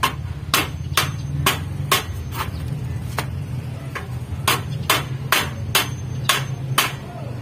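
Repeated sharp knocks, about two a second, like blows of a hammer on a hard surface. They come in two runs with a short pause between, over a steady low hum.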